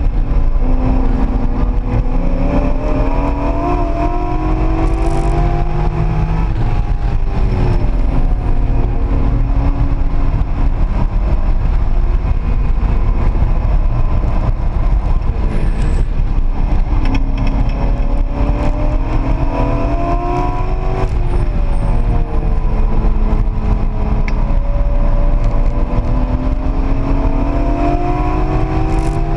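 Corvette V8 heard from inside the cabin, revs climbing under acceleration, falling back sharply about seven seconds in and again about twenty-one seconds in, then climbing once more, over constant road and wind noise.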